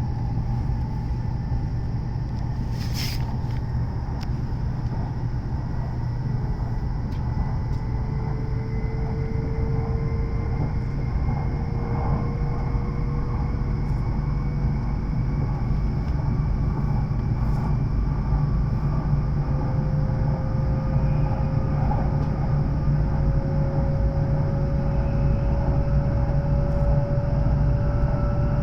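E7-series Shinkansen running, heard inside a passenger car: a steady low rumble with a faint whine that slowly rises in pitch, and a single sharp click about three seconds in.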